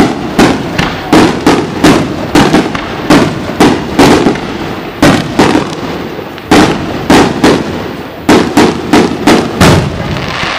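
Fireworks display: a rapid volley of aerial shell bursts, sharp bangs coming about two or three a second, with a short lull about halfway through.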